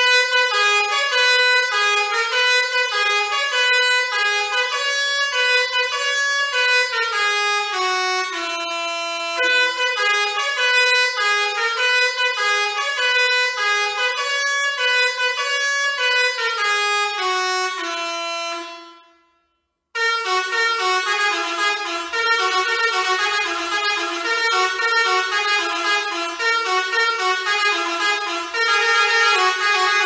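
Basuri 5.0 six-trumpet electric musical air horn playing a melody as a run of blaring horn notes. The tune stops about two-thirds of the way through, and after a second's pause the next preset melody starts.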